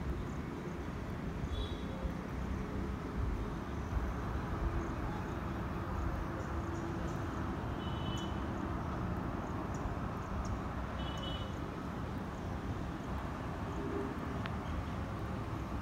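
Steady low outdoor rumble with no clear source, with a small bird chirping briefly three times.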